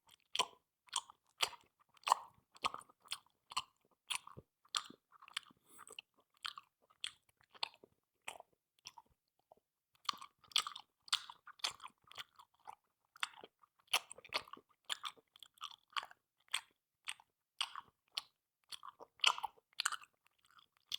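Loud open-mouthed smacking while eating: a quick run of wet lip and mouth clicks, about two to three a second, with a short pause about nine seconds in.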